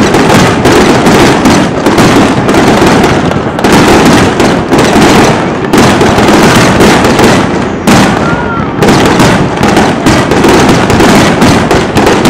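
Aerial fireworks display: shells launching and bursting in rapid succession, loud booms overlapping with crackling, nearly without a pause.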